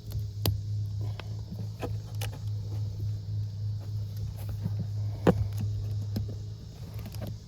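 Small clicks and knocks of a plastic wiring-connector housing being handled and pressed back together, with one sharper click a bit past halfway, over a steady low hum.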